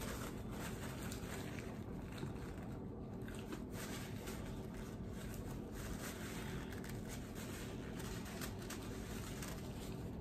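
Close-up eating sounds: a paper napkin and food-wrapping paper rustling and crinkling as greasy hands are wiped and chicken wings are handled, with small chewing and mouth noises, over a steady low hum.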